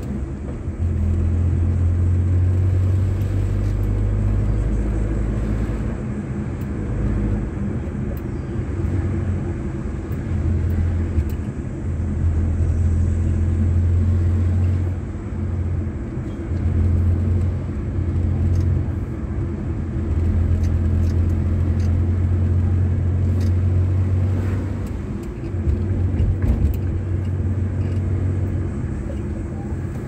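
A car driving on the road, heard from inside the cabin: a steady low engine and road drone that swells and eases several times.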